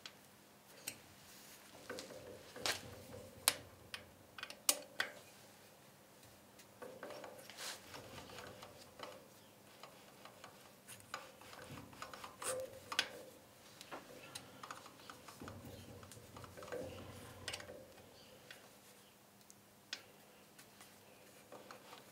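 Faint, scattered clicks and light metal taps as a Myford ML7 lathe headstock is worked by hand: the spindle and gear turned and the bearing-cap bolts worked with an Allen key while shimming the bearing caps.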